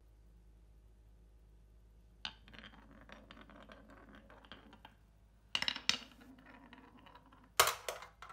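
Glass marble rolling along a wavy groove in a wooden marble run track: a rolling rumble with small clicks as it swings through the curves, starting with a click about two seconds in. Sharper clacks follow as it drops onto the next wooden pieces, the loudest near the end.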